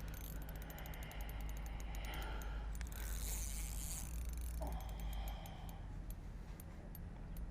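Fishing reel's drag clicking in rapid, uneven ticks as a hooked carp runs and pulls line off against the drag.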